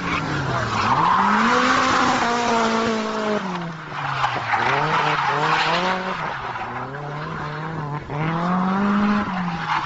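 A drifting car's engine revving up and down again and again, with tyre squeal from the sliding car swelling and fading over it.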